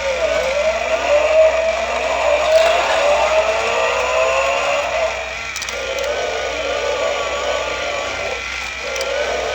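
An engine sound revving in several rising sweeps, the kind of race-car sound played with toy-car play, over background music.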